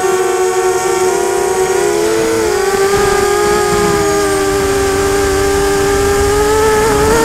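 Brushless motors of a ZMR250 quadcopter (Emax MT1806 with Gemfan 5030 props) buzzing in flight, a steady whine whose pitch wavers with the throttle at first and then holds steadier. Wind rushes on the microphone from about three seconds in.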